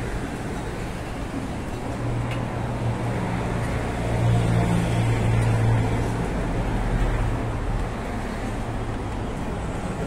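City street traffic: a steady wash of road noise, with a vehicle's engine hum growing louder in the middle and easing off again.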